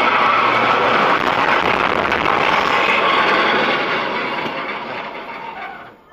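Steady rushing road and engine noise of a moving car heard inside its cabin, fading out over the last two seconds.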